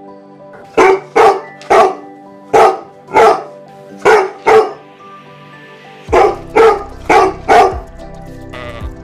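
A dog barking in short, sharp barks: a run of seven, a pause of about a second and a half, then four more, over background music.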